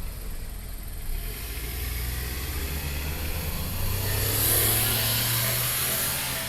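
A road vehicle drives past over the crossing, its engine hum and tyre rush building to a peak about four to five seconds in and then easing off.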